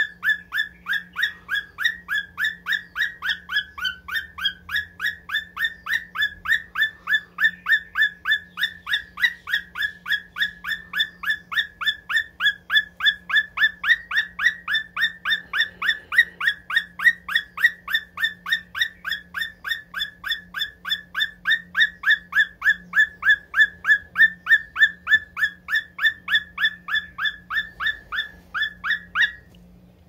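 Lutino cockatiel chirping over and over in a fast, even rhythm of about four short, slightly falling calls a second. The calls stop just before the end.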